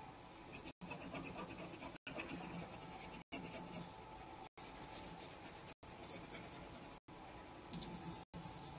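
Faint scratching of a colouring pencil on paper, cut by brief total dropouts in the sound about every second and a quarter.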